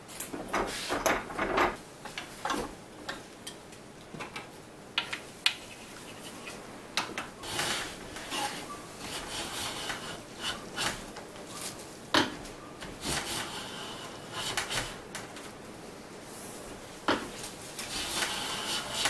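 Wooden knocks and clatter as a board is set in a bench vise, then, from about seven seconds in, several long hissing strokes of a hand plane shaving one face of a soft maple board flat.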